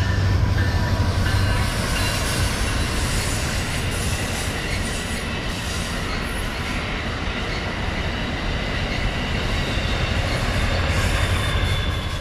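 An Amtrak passenger train passes at speed: the lead Siemens Charger diesel locomotive's engine hums low at the start, then the cars' wheels rush and clatter over the rail joints with a few thin, steady high whining tones. The low engine hum swells again near the end as the trailing locomotive goes by.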